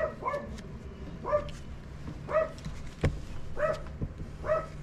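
A dog barking over and over, short barks about once a second.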